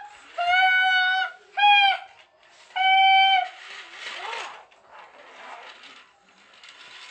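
Three steady train-horn toots, a longer one, a short one and a medium one. They are followed by the softer rattle of the Duplo train pushed along its plastic track.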